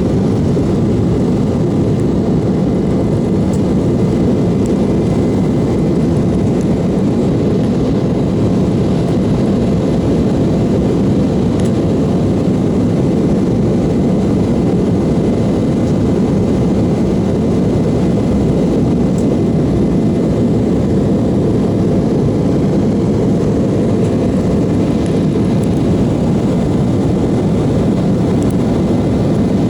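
Steady cabin noise of an airliner heard from inside the cabin: an even, deep rush of engines and airflow with faint steady hums over it.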